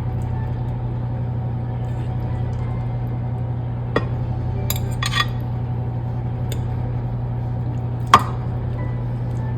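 A kitchen utensil clinking against a dish a few times, about 4 and 5 seconds in and most sharply near the end, as sauce is spooned over chicken pieces. A steady low hum runs underneath.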